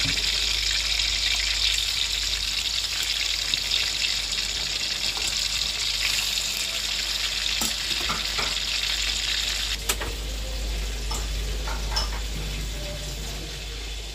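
Tuna chunks sizzling steadily as they fry in hot oil in a wok. About ten seconds in the sizzle cuts off sharply, leaving a quieter background with a few light clicks.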